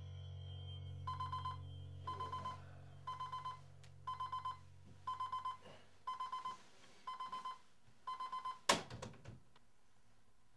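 Digital alarm clock beeping: groups of four quick high beeps, one group a second, eight times over. A sharp knock near the end, and the beeping stops.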